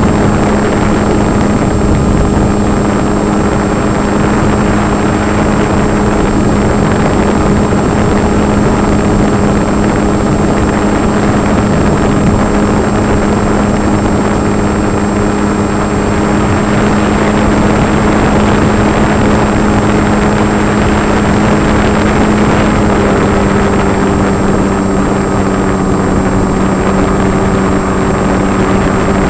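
Electric motor and propeller of an RC foam plane running steadily close to the microphone, with a steady hum under a rush of wind noise. The pitch steps up slightly about two-thirds of the way through, as the throttle changes.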